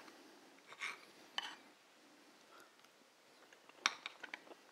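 Knife and fork cutting a slice of porchetta with crispy crackling on a plate. There are two short crisp scrapes about a second in, then a few light clicks of cutlery against the plate near the end.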